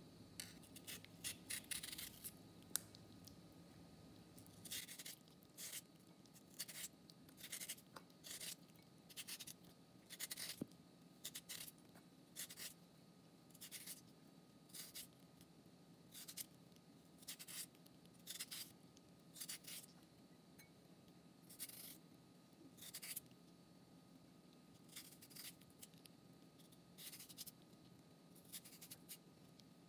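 Vegetable peeler blade drawn along a peeled cucumber, cutting long thin strips of flesh: repeated short scraping strokes, roughly one a second, with a quicker run of strokes near the start.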